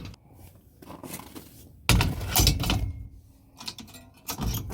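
Metal clanks and rattles from a utility trailer's hitch latch and folding plate being worked by hand, with a loud burst of knocks about two seconds in and lighter clicks near the end.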